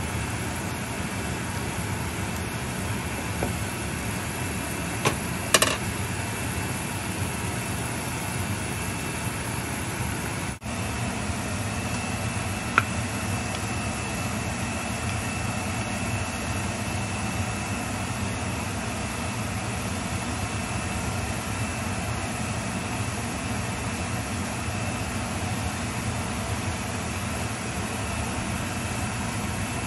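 Steady rushing noise from a gas stove with a pot of soup at a rolling boil. A few short knocks come about five and a half seconds in and again near thirteen seconds.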